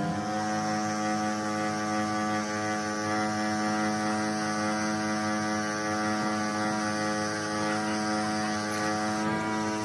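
A steady electrical hum with many overtones, holding one pitch throughout.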